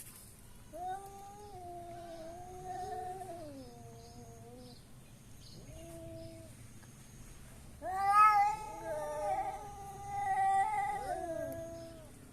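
Domestic cats caterwauling in an aggressive fight standoff: long, wavering yowls that rise and fall in pitch. A drawn-out howl of about four seconds and a brief one are followed, about eight seconds in, by a louder yowl in which two voices overlap.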